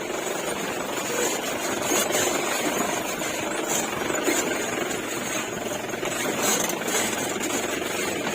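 Off-road jeep driving down a rough track, its engine running steadily under the noise of the ride.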